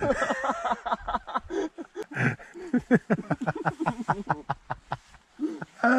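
A man laughing at a joke, with a fast run of short laughs in the middle.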